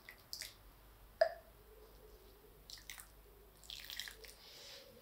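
Water poured from a small ceramic jug into potting soil, trickling and dripping in short, faint spells, with a sharp tap about a second in.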